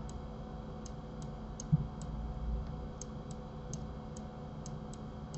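Light computer mouse clicks at uneven intervals, about a dozen of them, as sculpt brush strokes are made, with one soft low thump just under two seconds in.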